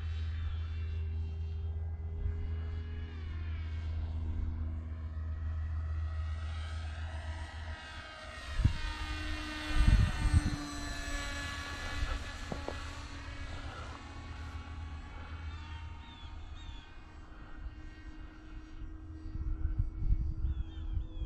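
Mini Skyhunter R/C plane's electric motor and propeller whining in flight. For the first several seconds it is a steady close drone from on board the plane. Then it is heard from the ground, the whine shifting in pitch as the plane flies past, with a few thumps of wind on the microphone.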